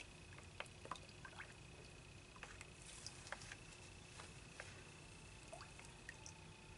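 Silicone spatula stirring soap oils in a plastic mixing bowl: faint scattered clicks and light liquid swishes, over a faint steady high whine.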